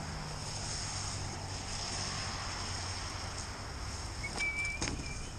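Steady outdoor wind noise over a low rumble of road traffic, with a short thin tone and a couple of clicks near the end.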